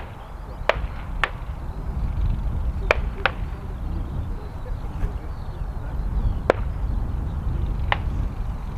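Gunfire from a nearby gun club: about seven sharp cracks at irregular intervals, two of them coming in quick pairs, over a steady low rumble.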